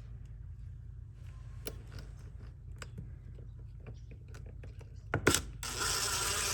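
Hand work on a retractable screen assembly: light clicks and handling noises over a low steady hum. About five seconds in come two sharp clicks, then a rasping sound that lasts about a second and a half.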